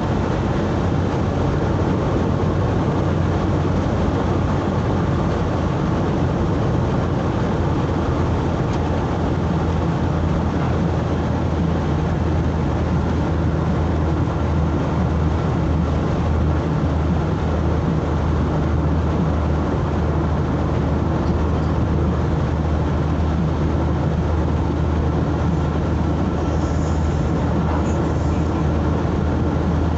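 A road vehicle driving at a steady pace, with a constant low engine hum under even road noise.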